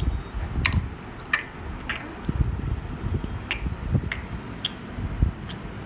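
A baby making sharp 'tick tick' clicking sounds with its mouth, seven separate clicks spaced irregularly about half a second to a second apart. Soft low thumps lie under them.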